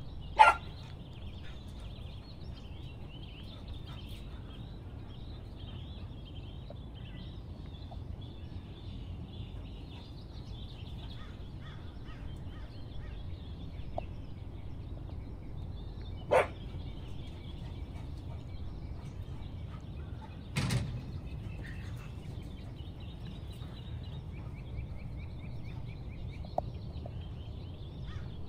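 Outdoor ambience with small birds chirping on and off over a steady low background rush. Three brief, sharp, loud sounds stand out: the loudest about half a second in, another about 16 seconds in, and one about 21 seconds in.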